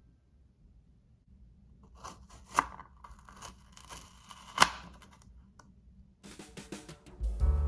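Light rustling and handling of small kitchen items, with two sharp clicks a couple of seconds apart, then a flurry of quick clicks before background music starts near the end.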